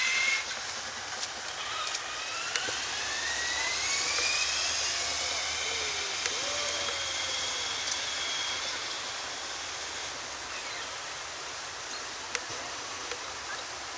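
Traxxas Slash 4x4 electric RC truck's motor whining as it accelerates away, the pitch rising over the first few seconds, then fading as the truck gets farther off. A sharp tick sounds near the end.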